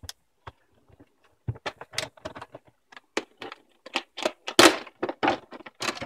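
Clear plastic blister packaging being handled and pried open: an irregular run of crackles, clicks and snaps that starts about a second and a half in, with the loudest crackle about four and a half seconds in.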